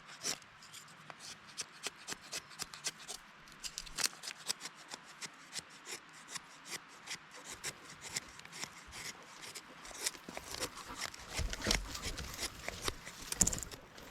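Dry wood being worked by hand: a quick, irregular run of sharp scraping and crackling strokes, several a second, with a few heavier knocks about three quarters of the way through.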